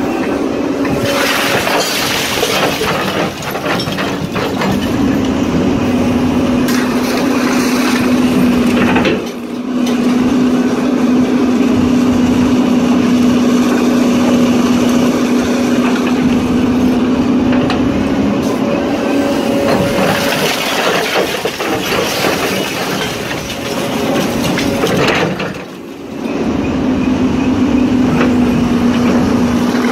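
Doosan crawler excavator's diesel engine and hydraulics running steadily under a constant low hum while it works a hydraulic scrap magnet. There are harsher, noisier stretches about a second in and around twenty seconds in. The sound dips briefly about nine seconds in and again near the end.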